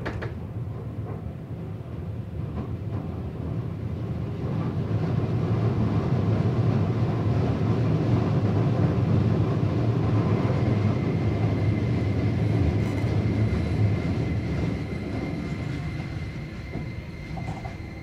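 Keio Series 5000 electric train heard from inside the car while running, its wheel-and-rail rumble growing louder over the first few seconds, holding, then easing off. A faint steady high whine runs underneath, and a short falling motor whine comes near the end.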